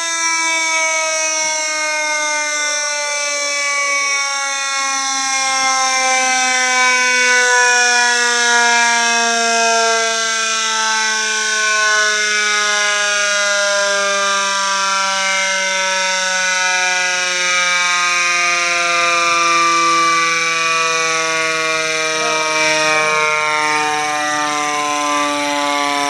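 Federal Signal C5LB motor-driven siren winding down. Its loud wail falls slowly and steadily in pitch throughout.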